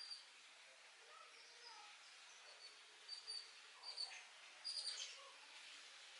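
Faint short, high bird chirps, a few at a time, with the loudest cluster about four to five seconds in, over quiet outdoor background noise.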